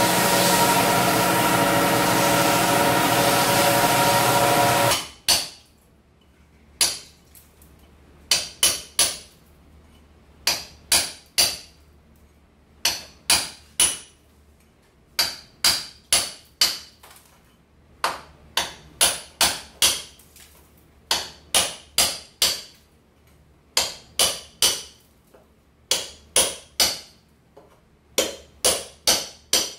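A drum floor sander runs steadily for about the first five seconds and stops abruptly. Then a hammer strikes a chisel in quick groups of two to four sharp, ringing blows, loosening old parquet blocks along the edge of the floor for repair.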